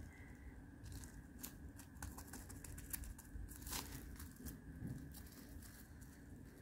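Faint crinkling and crackling of paint-coated plastic bubble wrap being pressed onto a canvas and lifted off, a scatter of soft clicks.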